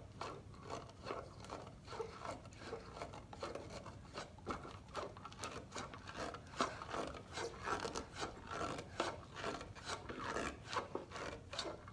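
A homemade heart-model pump, a party balloon stretched over a plastic cup, pressed and worked by hand, giving a run of irregular rubbing and scraping sounds and small clicks.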